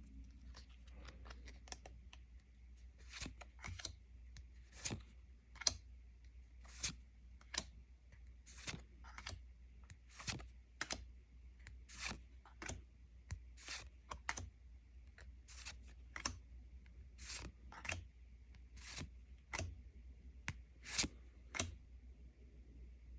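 Lorcana trading cards being flicked through one at a time, each card giving a short, sharp snap, about one or two a second at an uneven pace.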